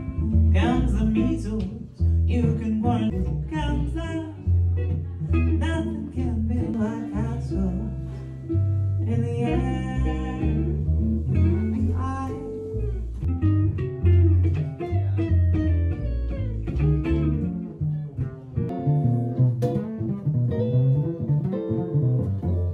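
Live jazz trio playing: a woman singing over guitar and plucked upright double bass, with the bass notes the loudest part.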